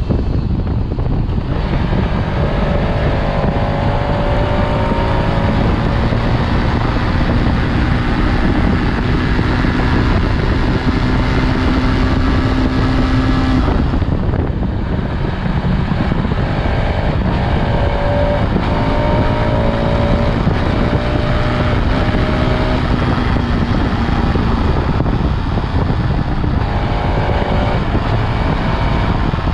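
Bajaj Pulsar RS200 motorcycle's stock exhaust and single-cylinder engine under way, its note climbing as it accelerates, breaking off about halfway through, then climbing again. Heavy wind blast on the action camera's microphone.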